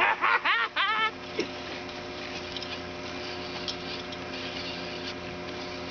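Tractor engine idling, a steady hum. In the first second, several quick rising-and-falling pitched chirps sound over it.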